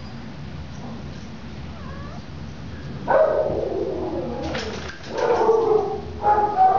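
Playing dogs letting out a series of whining yowls that fall in pitch, starting about three seconds in and coming again several times toward the end.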